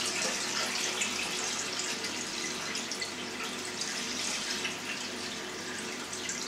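Milk pouring in a steady stream from a glass jar through cheesecloth into a stainless-steel vat, splashing as it is strained.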